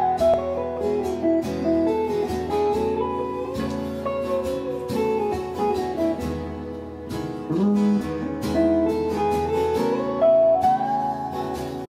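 Instrumental guitar music, acoustic and electric guitars together, with plucked notes and a melody line that glides up and down between pitches; it stops abruptly at the very end.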